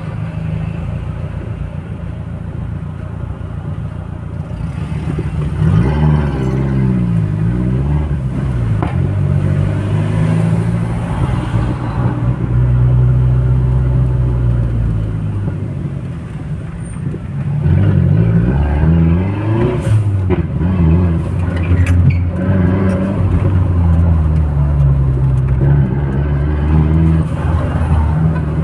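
Turbocharged 250 hp Audi A3 engine on the move: after a quieter, steady start it grows louder about six seconds in, and its pitch climbs and drops several times as it accelerates through the gears, then holds steadier while cruising.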